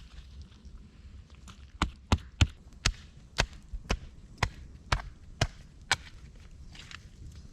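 Wood being chopped with an axe: about ten quick, sharp blows, roughly two to three a second, starting about two seconds in and stopping about a second before the end.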